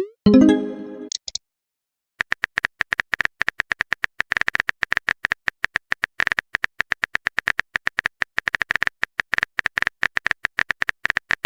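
Rapid, evenly paced phone-keyboard typing clicks, after a short pitched message-alert chime near the start.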